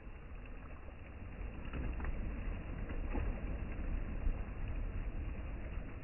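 Sea water washing and sloshing in a steady rush, with a few small clicks about two and three seconds in.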